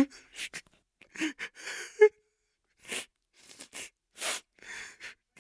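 A young man crying: a run of short, ragged sobbing breaths and sniffles with brief pauses between, a couple of them catching into a choked, voiced sob.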